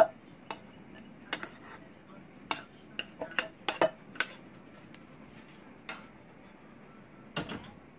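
A metal utensil knocking and scraping against a saucepan in irregular sharp clinks as cooked rice is scooped out, busiest in the middle with a double knock near the end.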